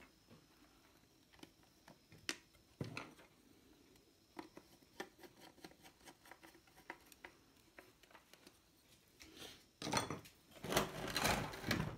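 Terminal-box cover of a water pump motor being handled and fitted back on: scattered light clicks and taps, then a louder stretch of knocking and scraping near the end.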